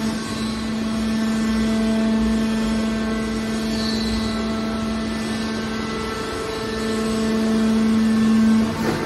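Hydraulic scrap-metal baler's power unit running with a steady hum on one fixed low tone, growing louder for the last couple of seconds, as its ram pushes a compressed bale of scrap wire out of the chamber.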